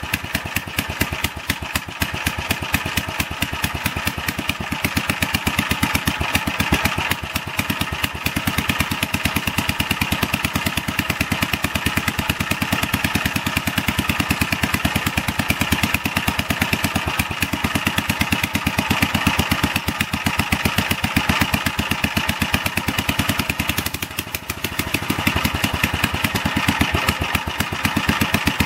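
1947 Gravely Model L walk-behind tractor's single-cylinder engine running steadily with a rapid, even firing beat, dipping briefly near the end. It is running with a broken exhaust manifold.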